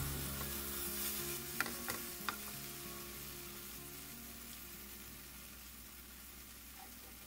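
Egg-and-bread sandwich frying in a nonstick pan: a steady sizzle that slowly fades, with a few light clicks of a plastic spatula in the first half.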